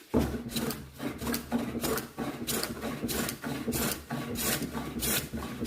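Stanley No. 4 bench plane being pushed along a board in repeated strokes, its iron shearing off shavings with a rough scraping hiss, about two strokes a second, smoothing the wood's surface.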